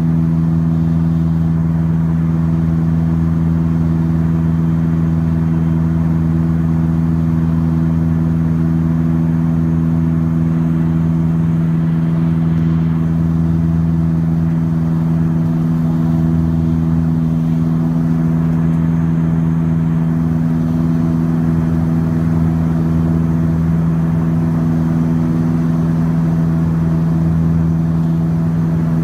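Saab 340's twin GE CT7 turboprop engines and propellers heard inside the passenger cabin: a steady, even drone with a constant low propeller hum.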